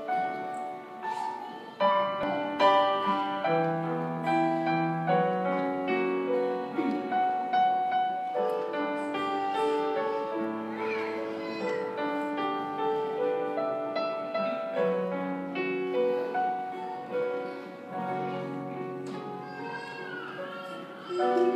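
Keyboard playing slow, held chords: the accompaniment to a Spanish church song.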